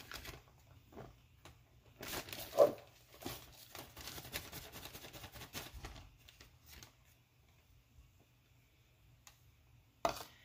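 Flour being scooped and poured into a mixing bowl with a measuring cup: rustling, scraping and light clicks, with one sharp knock about two and a half seconds in. It goes much quieter for the last few seconds.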